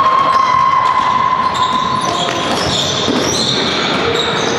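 Basketball bouncing on a sports-hall court during play, with thin high squeaking tones coming and going over it.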